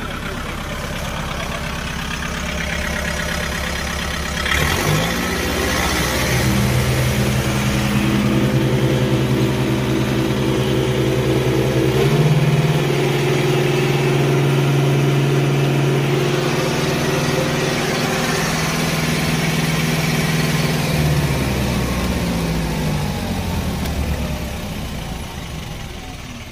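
Kubota MU5502 tractor's four-cylinder diesel engine running, revved up from idle about five seconds in, pushed a little higher around halfway and held there, then dropping back down over the last few seconds.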